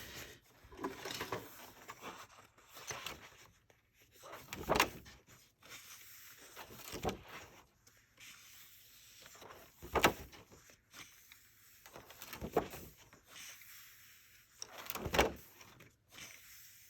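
Pages of a paper colouring book being turned one after another, each turn a brief swish, about every two to three seconds.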